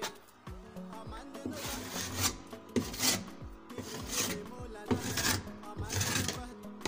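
Rasping, rubbing strokes of a hand-held pad worked against a plaster-of-Paris (POP) ceiling board, about one stroke a second, as the surface is smoothed.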